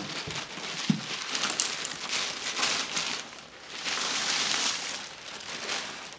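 Thin plastic bag crinkling and rustling as an EV charger wrapped in it is worked loose and lifted out of a cardboard box, easing off briefly about halfway through.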